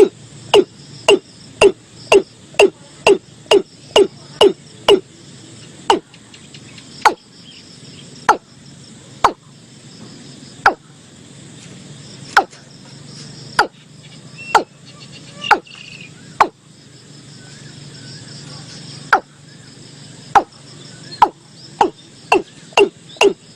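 Male watercock calling: a long series of short notes, each dropping in pitch. They come about two a second at first, slow to roughly one a second or slower in the middle, and quicken again near the end.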